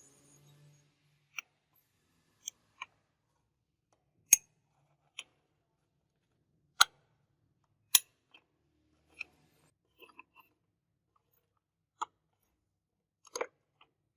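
About a dozen sharp clicks and taps, spaced irregularly, with near silence between them, from small tools or parts being handled; three louder snaps come a little before halfway and a little past halfway.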